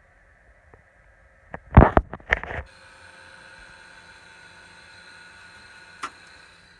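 Desktop computer hardware being handled: a quick cluster of loud knocks and clunks, then a desktop PC running with a steady whirring hum and a faint high whine, and one short click near the end.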